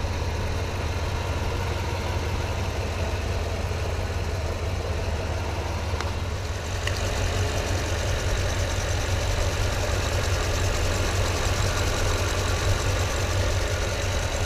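Toyota Tundra's supercharged V8 engine idling steadily, a little louder and brighter from about seven seconds in.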